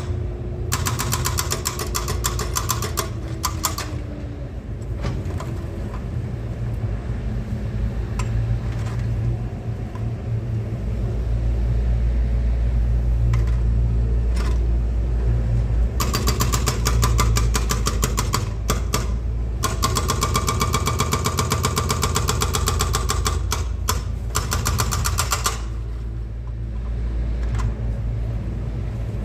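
Excavator's diesel engine running steadily under load, with stretches of rapid, evenly spaced metallic hammering near the start and again from about halfway through to near the end.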